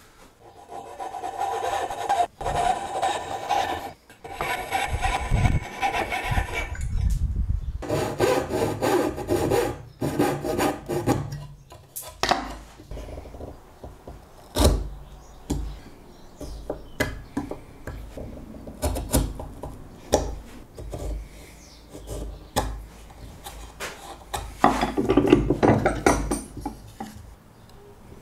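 Hand saw cutting dovetails in a board held in a vise, with long stretches of rasping back-and-forth strokes. Between the sawing, sharp separate knocks as a chisel chops out the waste between the tails.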